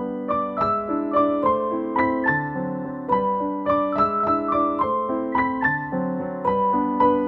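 Background piano music: a melody of notes struck about three a second over held lower notes.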